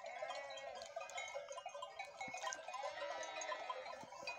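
A flock of sheep and goat kids bleating, many overlapping calls, with a light tinkle of bells. The kids are newly weaned and calling as they try to settle into the flock.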